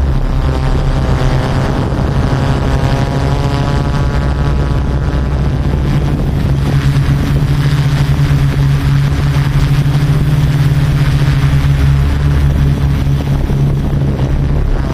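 Yuneec Typhoon Q500 4K quadcopter's motors and propellers running in flight: a steady loud buzz with a whining overtone that shifts in pitch. The overtone fades midway and comes back near the end.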